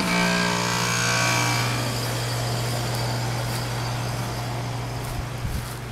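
Troy-Bilt lawn mower's small petrol engine running at a steady speed.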